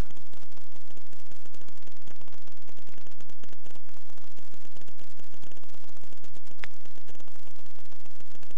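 Loud, steady static hiss full of fine crackling over a low hum, with one brief sharp click about seven seconds in.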